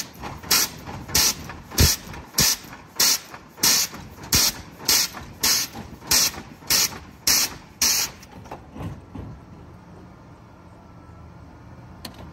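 Air-bag suspension on a 1986 Lincoln Town Car working its valves: a quick run of sharp hissing puffs of air, about one every 0.6 s, as the bags dump and fill to make the car dance on three wheels. The puffs stop about eight seconds in, leaving a low steady hum.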